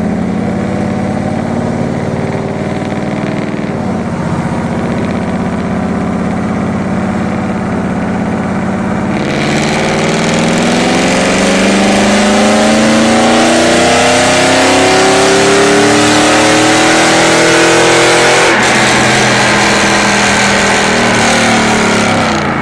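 Chevrolet 8.1L Vortec 496 cubic-inch big-block V8, fitted with Raylar Stage 2 heads and camshaft, running steadily at first, then going to full throttle about nine seconds in with the revs climbing steadily and the sound growing much louder. Near the end the pitch drops abruptly and the engine carries on at lower revs.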